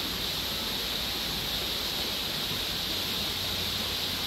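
Steady, even hiss of outdoor background ambience, brightest in the upper-middle range, with no distinct events.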